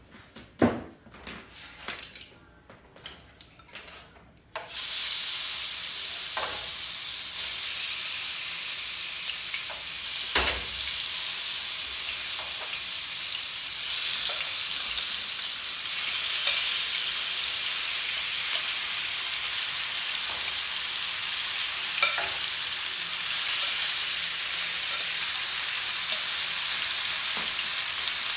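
A few light knocks and clicks, then about four and a half seconds in chicken hits hot olive oil in the pot and starts sizzling steadily. A few sharp knocks sound over the sizzle.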